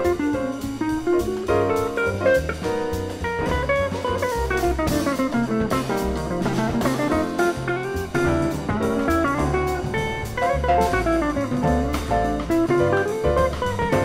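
Jazz combo with electric guitar, walking bass and drum kit, playing a busy instrumental passage. Quick runs of notes sweep up and down over a stepping bass line, with steady cymbal strokes.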